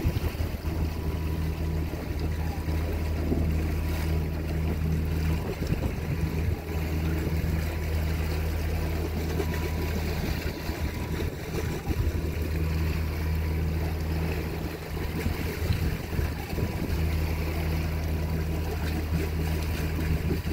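A boat's engine running with a steady low drone under a rush of water and wind. The drone is briefly blurred by louder rushing noise a few times.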